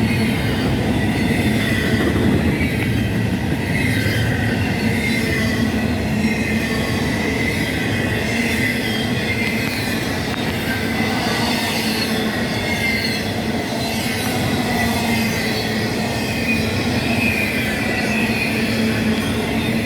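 CSX intermodal freight train rolling past: a steady rumble of cars on the rails, with wavering high-pitched wheel squeal throughout.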